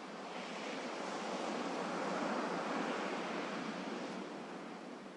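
Gentle sea waves washing in: one wave swells over about two seconds, then recedes and fades away.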